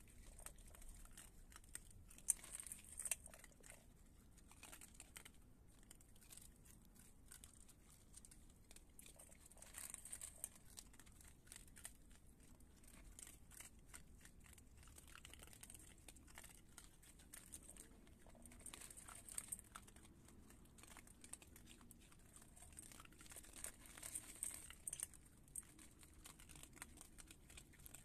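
Raccoons eating dry kibble from a metal bowl: faint, irregular crunching and clicking of the pellets, in a few louder spells.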